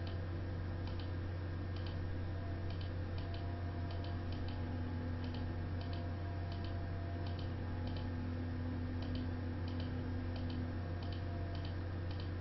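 Computer mouse clicking irregularly, about one or two clicks a second and often in quick pairs, over a steady low electrical hum.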